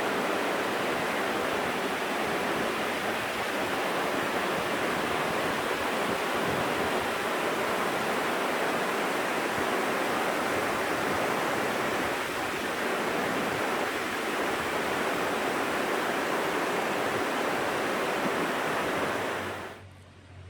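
The Virgin River's water rushing over rocks: a steady, even rush that cuts off suddenly near the end.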